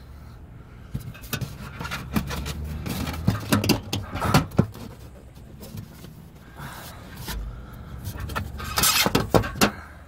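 A hand scraping and knocking a thin metal piece back into place behind an RV absorption refrigerator's cooling fins: rustling and scraping, broken by sharp knocks, with a burst of louder knocks near the end.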